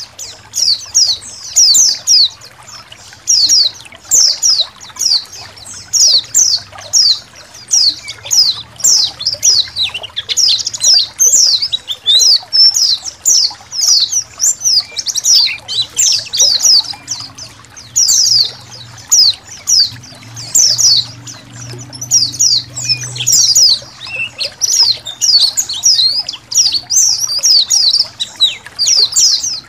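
A flock of white-eyes (pleci) chirping nonstop: many quick, high, downward-sweeping chirps overlapping one another, over a faint trickle of water.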